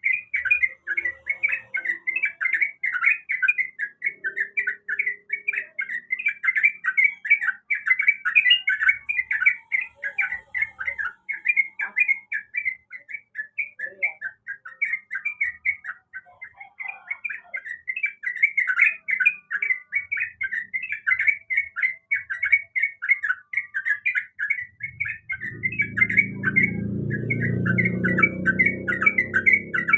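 Yellow-vented bulbul (trucukan) song: a rapid, continuous run of short chattering notes, with a short break about halfway through. A low hum joins in during the last few seconds.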